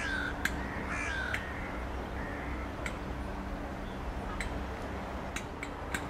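A crow cawing twice in quick succession, harsh falling calls, with a fainter third call about two seconds in.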